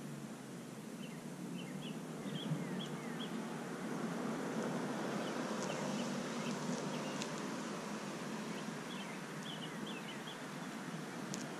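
Outdoor night ambience: a steady background hiss of environmental noise, with scattered short, high chirps and a few quick falling calls from small animals, coming in little clusters.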